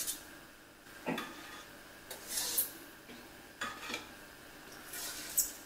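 Spatula scraping and clinking on a metal baking tray as cookies are lifted off it, in a few short scrapes about a second or so apart.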